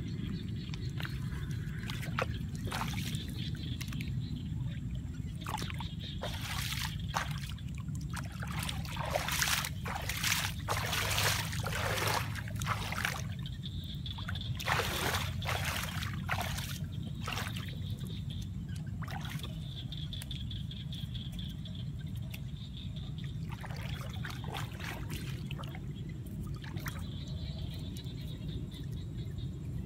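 Hands sloshing and splashing in shallow muddy water and working wet mud as it is packed around a bamboo fish trap. The splashes come in irregular bursts, busiest from about six to sixteen seconds in, over a steady low background rumble.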